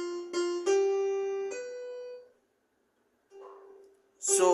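Piano playing a short melody of single notes: two on the same pitch, then two stepping upward, the last left to ring and fade. A softer note follows about three seconds in.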